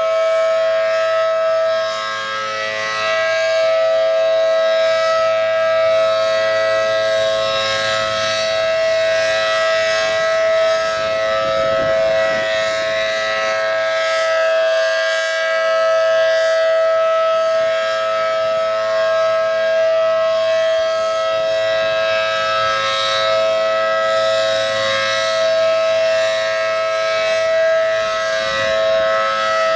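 ACA Allertor 125 tornado siren with a 10/12 port rotor sounding a steady alert tone, loud and held at a level pitch, with two close tones sounding together.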